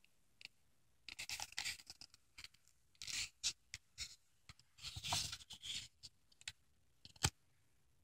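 Faint rustling and scraping of a picture book's paper page being handled and turned, in several short scratchy bursts, with one sharp tap near the end.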